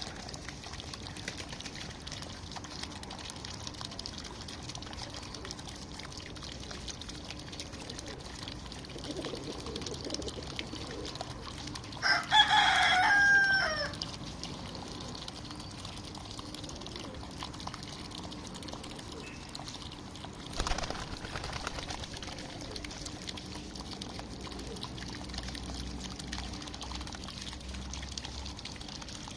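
Water trickling steadily, with a rooster crowing once, loudly, about twelve seconds in; the crow lasts about two seconds and drops in pitch at the end.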